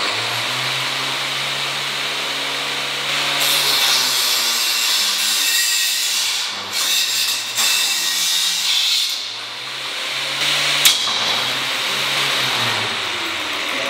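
Angle grinder running with a thick cutting disc, a steady motor whine joined by the harsh hiss of the disc grinding into metal from about three and a half seconds in until about nine seconds. A sharp click near eleven seconds.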